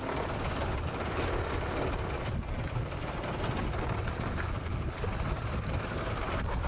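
Steady rumbling rush of noise on board a sailboat under way, heaviest in the low end.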